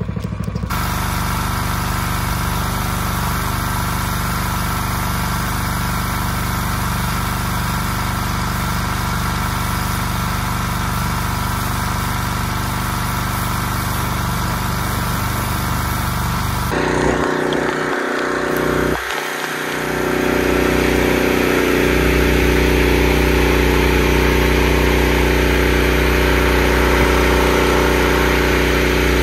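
Engine running steadily. About 17 seconds in the sound changes abruptly and briefly dips, then a louder, deeper engine sound runs on steadily.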